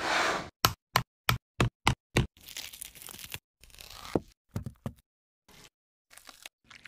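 A short whoosh, then six sharp taps at about three a second as an eggshell is knocked and cracked, followed by crackly rustling as the shell is peeled off in pieces.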